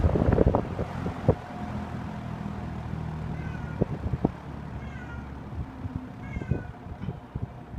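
Three faint cat meows over the steady hum of a 1974 Toastmaster Model 5373 box fan motor running slowly on its low setting. A few clicks and knocks near the start, and a couple more later.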